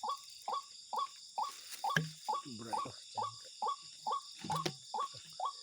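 An animal calling in short notes, evenly repeated about twice a second, over a steady, high-pitched insect chorus. Low voices murmur briefly about two seconds in.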